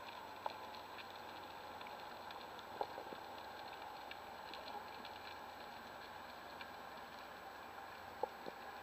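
Underwater ambience recorded through a camera's waterproof housing while diving over a reef: a faint, steady hiss with scattered small clicks and crackles, the loudest about three seconds in and near the end.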